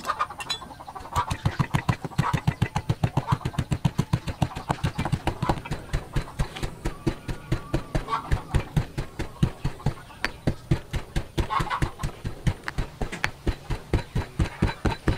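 Pestle pounding spices in a heavy stone mortar: steady, rapid thuds at about three to four strokes a second, starting about a second in.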